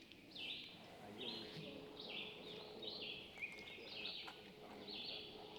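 Faint outdoor ambience: a steady run of short, high chirps, a few a second, over a light hiss.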